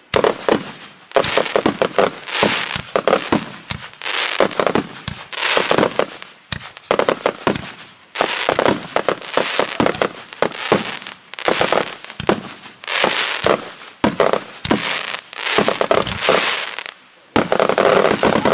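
1.3G display fireworks going off in rapid succession: aerial bursts bang and crackle in dense volleys, one barrage after another with only brief lulls.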